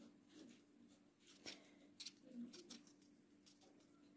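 Near silence: a few faint rustles and ticks from a paper seed packet as seeds are shaken out onto potting soil, over a faint steady low hum.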